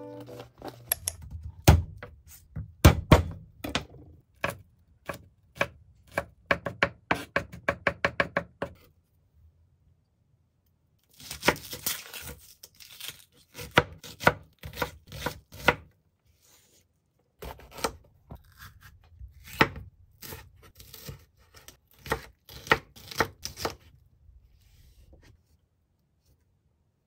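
Chef's knife chopping onion and other vegetables on a wooden cutting board: a series of sharp knocks against the board, with a fast run of strokes about six to eight seconds in. The chopping comes in several runs with short silent gaps between them.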